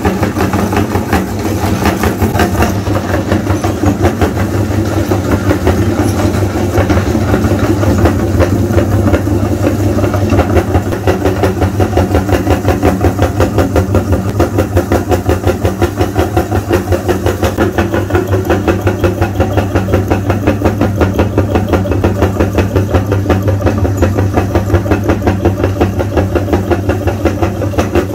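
An engine running steadily at idle, with an even, rapid pulsing beat.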